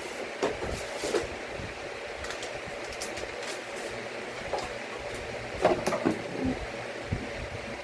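Scattered light clicks and knocks of hands handling computer parts and cables, over a steady background hiss. The loudest cluster of clicks comes about six seconds in.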